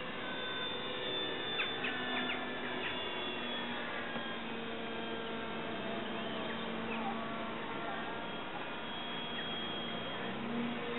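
Distant engine of a radio-controlled aerobatic model plane droning in the sky, its pitch drifting up and down as it manoeuvres, with a clear bend in pitch near the end.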